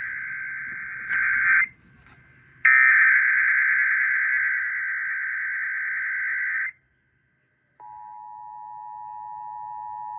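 Emergency Alert System SAME header data bursts, a harsh buzzing digital screech encoding a Child Abduction Emergency alert: one burst ends about one and a half seconds in, and after a short gap a longer burst runs about four seconds. After a second of silence, the steady two-tone EAS attention signal begins about eight seconds in.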